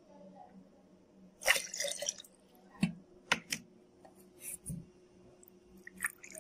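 Ceramic cups and a bowl of water being handled while the water is emptied into a blender jar: a short splashy rush about a second and a half in, then several light knocks and clinks of crockery.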